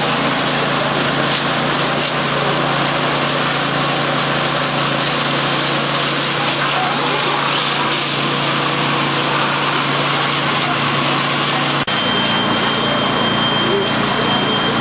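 Fire engine's pump and engine running steadily under the loud hiss of water from the hose streams. Near the end the sound cuts out for an instant, and after that a steady high tone sounds over it.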